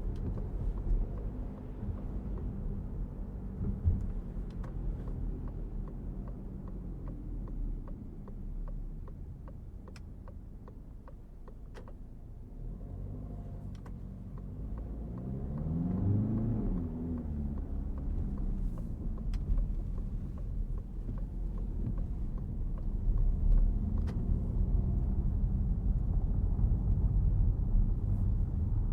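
Citroen C5 Aircross with its 1.5 diesel on the move: a steady low rumble of engine and road noise. About halfway through, the engine note rises and then falls as it pulls away, and the rumble grows louder toward the end, with a few light clicks.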